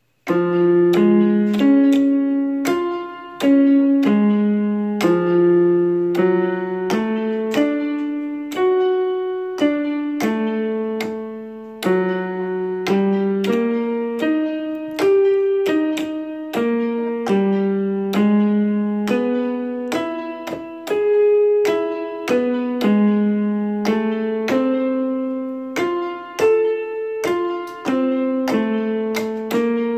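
Yamaha portable keyboard playing single piano-voice notes, one at a time, as a hen pecks the lit keys with her beak. The notes step up and down in major arpeggios at an uneven pace, roughly one to two a second, with short pauses.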